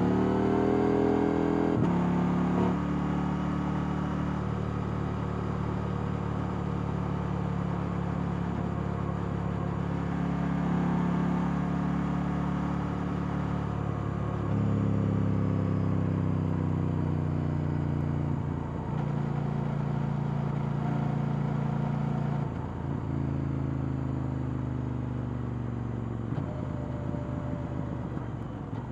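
KTM 890 Duke R's parallel-twin engine on stock exhaust, heard onboard while riding: it revs up at the start, drops in pitch about two seconds in, then runs at steady revs with several steps down and up in pitch as the throttle and gears change.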